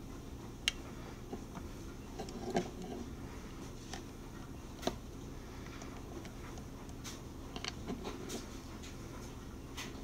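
Scattered small clicks and taps of hard plastic parts as new plastic agitator dogs ("frog legs") are handled and fitted onto a washing machine's plastic agitator cam, with a cluster of clicks near the end. A steady low hum runs underneath.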